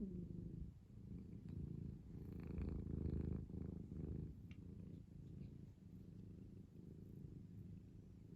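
A sleeping cat snoring: a low rumbling breath that swells about two seconds in and eases off after about four seconds, then goes on more quietly.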